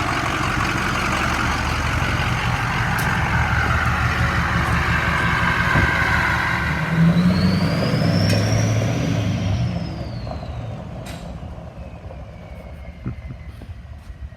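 Ford 6.0 Powerstroke V8 turbodiesel with a Powermax stage 2 turbo (GT4088R compressor wheel, 10-blade turbine) running loud, then dropping back after about ten seconds. A turbo whistle comes in about halfway through, rises in pitch, then slides down as the engine quietens.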